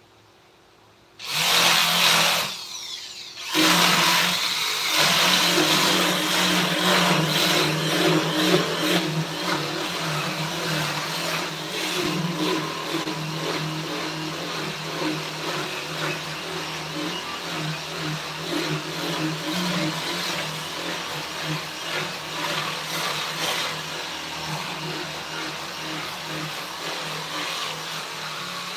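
Electric power tool switched on about a second in, easing off briefly, then running steadily with its loudness wavering as it works into wood.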